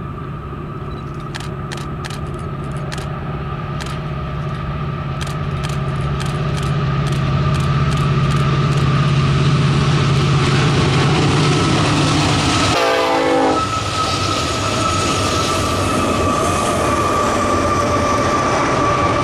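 Union Pacific diesel-electric locomotives approaching and passing, their engines a steady low hum that grows louder, followed by double-stack container cars rolling by. After the locomotives pass, a steady high tone rings over the rolling noise.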